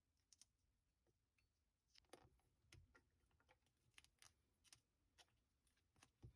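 Faint small clicks and brief rustles of hands working wire connectors and electrical insulation tape, coming more often after about two seconds.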